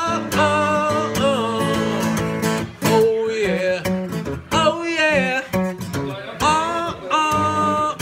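Blues-rock music: a guitar-led passage between sung lines, with notes bending up and down.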